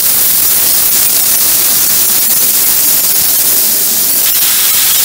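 Pork skewers sizzling on a hot round cast-iron griddle pan: a loud, steady hiss flecked with fine crackles.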